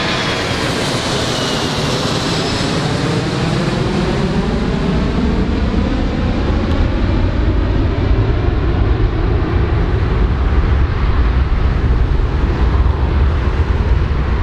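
Large aircraft's engines as it passes close by: a high whine falling in pitch over the first few seconds, then a deep rumble that builds louder.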